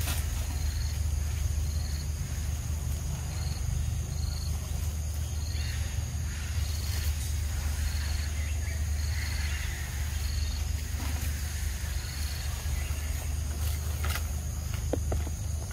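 Forest insects chirping and buzzing: short high chirps repeating about once or twice a second over a steady high drone. Underneath is a louder, steady low rumble, with a single click near the end.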